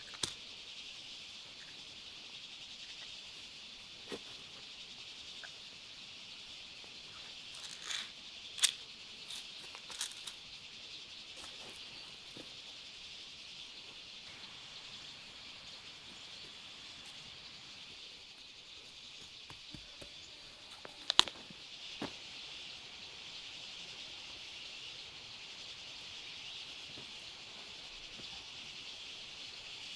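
A steady, high-pitched insect chorus, with a few sharp knocks and clicks scattered through it; the loudest come a little before nine seconds in and about twenty-one seconds in.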